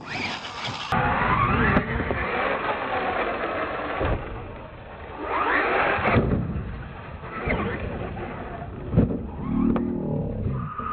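Radio-controlled monster truck's motor and gears whining as it revs up and down. There are several hard thumps as it lands on the dirt, about a second in, near six seconds and around nine seconds.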